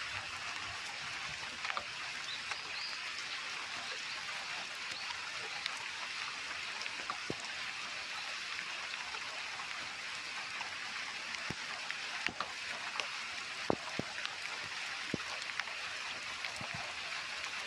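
Steady rain falling, a continuous hiss with scattered louder drips landing close by, a few standing out over the second half.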